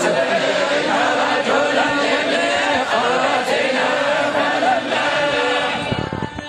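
A group of men reciting the Quran together in unison, a continuous melodic collective chant in the Algerian Sharqi style of group recitation. The voices drop away briefly near the end.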